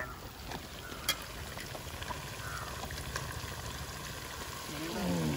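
Fish frying in hot oil in an aluminium pot: a steady bubbling sizzle, with a sharp click about a second in as the metal spatulas are worked in the pot.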